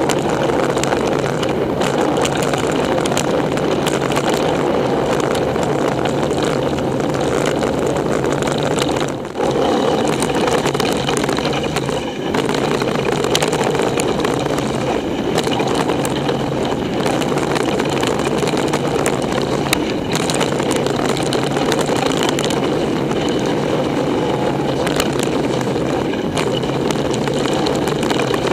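Mountain bike riding down wet, muddy singletrack, heard from a camera mounted on the bike or rider: a steady rushing noise of tyres and air, broken by many sharp clicks and rattles as the bike jolts over the trail.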